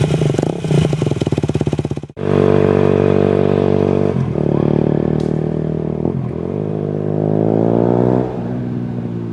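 Aprilia RS4 125's single-cylinder four-stroke engine through a LeoVince One Carbon aftermarket exhaust, revving hard and choppily at first, then after a sudden break holding a steady note with two brief dips. It revs up smoothly for about two seconds and drops back to a lower, steadier note near the end.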